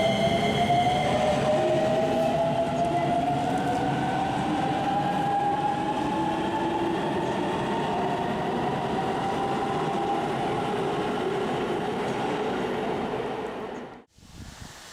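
Electric commuter train accelerating, its traction motors whining and rising slowly in pitch over a steady running rumble. The sound cuts off abruptly near the end.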